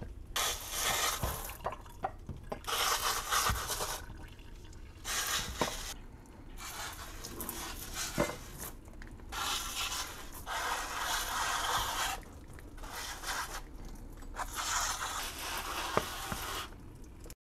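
VIVOSUN hand-pump pressure sprayer misting insecticidal soap solution onto plant leaves: repeated hissing sprays, each about a second long, with short pauses between them and a few light clicks.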